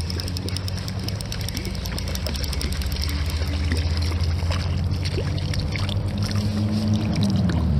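Spinning reel being cranked with fine rapid clicking while a hooked trout is fought to the surface and splashes, over a steady low hum.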